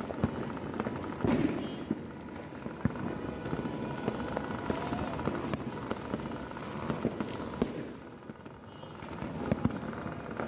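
New Year fireworks and firecrackers going off: scattered sharp pops and bangs over the steady crackling hiss of ground fountains, with the loudest burst about a second in.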